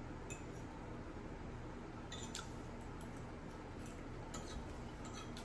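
Close-up eating sounds of people chewing meatballs in gravy: a few faint, scattered wet mouth clicks and smacks over a low steady hum.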